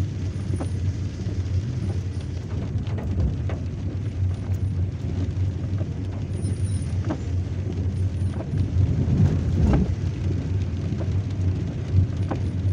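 Car cabin noise while driving slowly on a wet road in the rain: a steady low engine and road rumble with tyre hiss, broken by a few light knocks.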